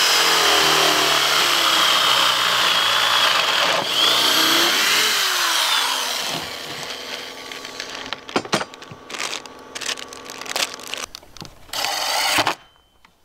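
Corded drill boring a pocket hole through a Kreg pocket-hole jig into a wooden board. It runs steadily for about six seconds, then dies away into scattered knocks and clicks. Near the end a cordless drill runs briefly, driving a hinge screw.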